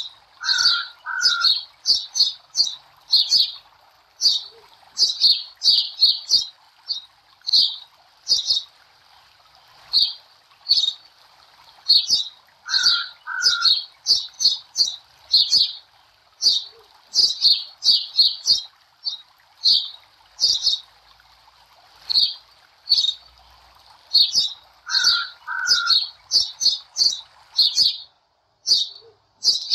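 Small birds chirping busily in quick, high peeps, several a second, over a faint hiss. A pair of lower two-note calls comes back about every twelve seconds, so the birdsong recording repeats.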